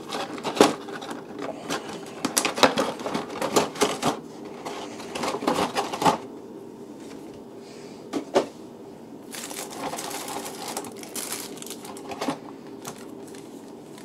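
Rigid black plastic toy packaging being handled and opened: a quick run of clicks and knocks through the first six seconds, then scattered single clicks and a short stretch of soft plastic rustling.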